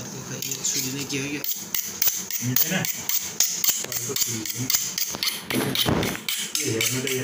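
A kitchen knife knocking and chopping in quick, irregular sharp strikes, about three to four a second, for food preparation.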